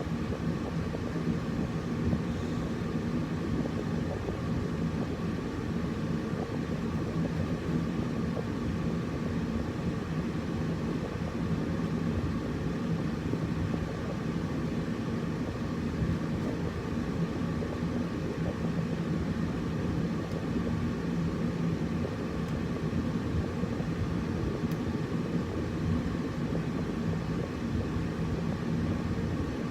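Air conditioner running steadily: an even rumbling whoosh of air and motor with a constant low hum.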